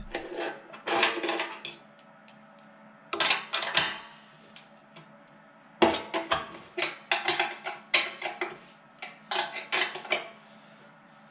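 Hand wrench tightening nuts on a steel motor-mount plate: metallic clicks and clinks in several short bouts with pauses between.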